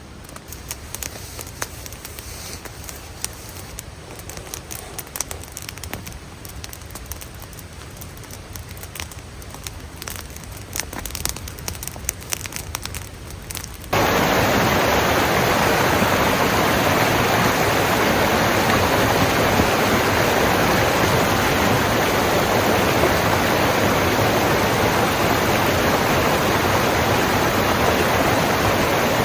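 A campfire crackling faintly with scattered small clicks, then, about halfway, a sudden switch to the much louder, steady rush of a mountain creek cascade.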